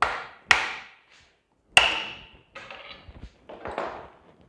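Metal tool striking a small Tecumseh engine's flywheel to knock it loose: three sharp blows, the third the loudest and ringing, followed by a couple of seconds of scraping and rattling metal.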